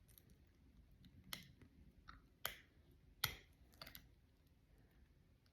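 Faint small clicks and taps, four of them sharper, as the white plastic battery spacer is pressed back into the open case of a Tissot Seastar watch.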